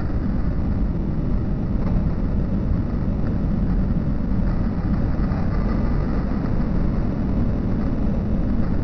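Steady low rumble of outdoor city noise, with no distinct events standing out.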